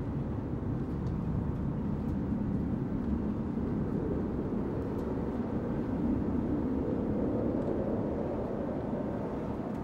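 Steady low engine rumble with no break or change in level, as from massed engines on an archival war-footage soundtrack.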